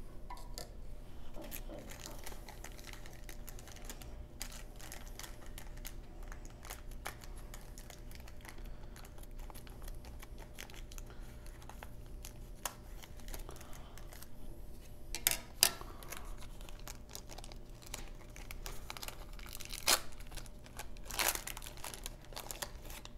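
Wrapper of a 1990 Score baseball card wax pack crinkling and rustling as it is handled, cut open with scissors and the cards slid out. There are scattered light rustles, with a few sharper, louder crinkles in the second half.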